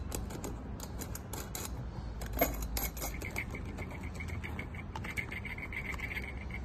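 Small metal screw fitting being turned by hand onto the threaded rod under a crystal wall lamp's chrome base, closing the base. Light metallic clicks and scraping, with one sharper click about two and a half seconds in and a faint, steady high squeak from about three seconds on.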